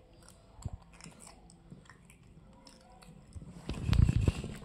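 Crunchy chewing of a crisp raw vegetable stick, small crisp clicks close to the microphone. About four seconds in, a louder bump and rustle.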